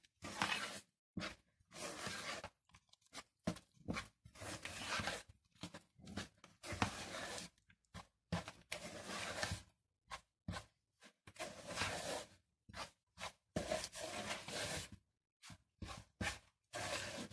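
A spoon stirring flour, water and oil into bread dough in a plastic bowl: irregular scraping and rubbing strokes with short pauses between them.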